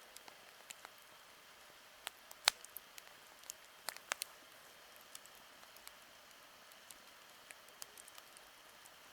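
Campfire burning with irregular crackles and sharp pops over a steady hiss, the loudest pop about two and a half seconds in.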